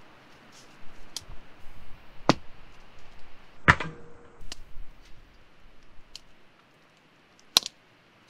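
Hatchet blows splitting firewood: about half a dozen sharp knocks a second or so apart, the loudest about three and a half seconds in with a brief metallic ring. Near the end comes a sharp metal clank as a steel grill grate is handled over the fire ring.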